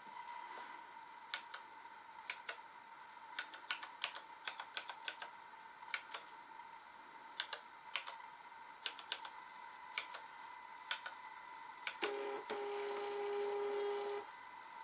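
Plastic keys on a 970 printer keypad clicking as a string of numbers is typed, in irregular presses. About twelve seconds in, a Zebra LP 2824 Plus thermal label printer runs for about two seconds with a steady motor whine, feeding out a printed price label.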